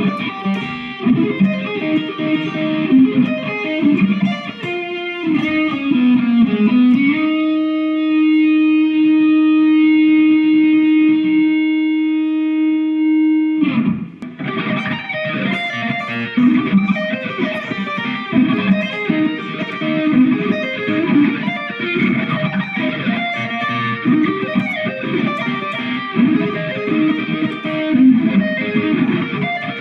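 Harley Benton Les Paul-style electric guitar playing fast single-note lines, with one long sustained note held for about seven seconds in the middle, stopped abruptly before the quick runs resume.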